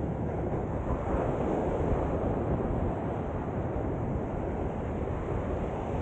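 Small surf waves washing onto a sandy beach, mixed with wind buffeting the microphone: a steady rushing noise.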